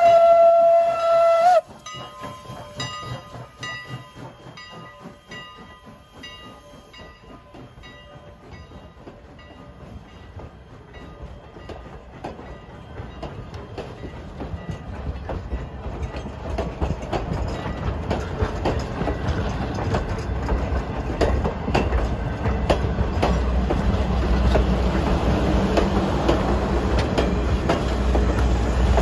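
The shrill banshee steam whistle of Strasburg Rail Road No. 89, a 2-6-0 Mogul, ends its blast with a slight upward slide about a second and a half in, and its echo lingers and fades over the next several seconds. The train's passenger coaches then roll past, the wheels clicking over rail joints, with a low rumble that grows louder toward the end.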